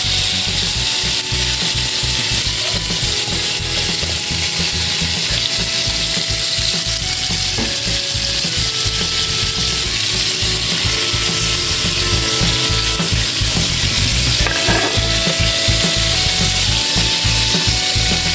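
Hot oil sizzling steadily as food fries, with background music playing over it.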